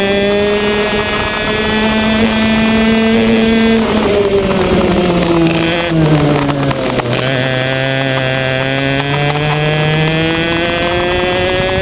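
Racing kart engine heard from onboard at racing speed; its note falls from about four seconds in as the throttle comes off, holds low for a couple of seconds, then climbs steadily again as the kart accelerates.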